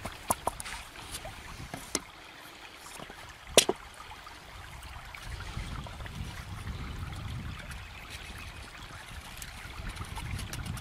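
Large knife cutting a green stick on a weathered wooden log: a few sharp clicks and knocks, the loudest about three and a half seconds in, over a low steady rumble.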